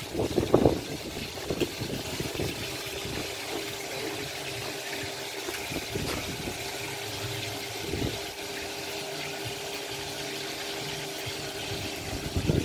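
A steady mechanical hum with a hiss over it, with a few knocks and a clatter near the start and a couple more around the middle.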